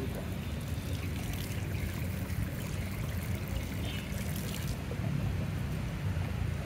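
Water running steadily, with a brighter splashing hiss for a few seconds in the middle.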